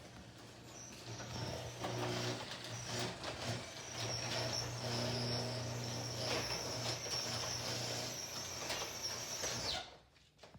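Garage door opener running a sectional door down, its motor humming steadily while the door's rollers and hinges squeak for want of lubrication. It stops abruptly near the end as the door reaches the floor.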